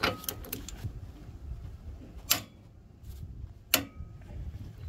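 Click-type torque wrench on a Ford Transit rear hub nut giving sharp metallic clicks, each with a short ring: one at the start, then two more about two and a third seconds in and near four seconds in. The clicks are the wrench breaking at its 425 N·m setting, the sign that the nut is fully torqued.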